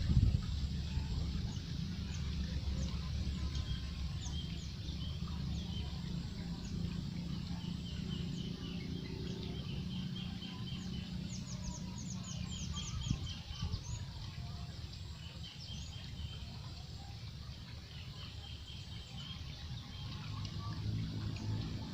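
Small birds chirping in short repeated phrases, with a quick run of high downward-sweeping notes about halfway through, over a steady low rumble.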